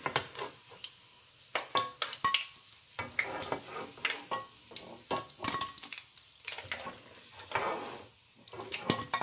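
Chicken meatballs frying in hot oil in a nonstick wok, sizzling, while a slotted spatula scrapes and taps against the pan again and again as the cooked meatballs are scooped out.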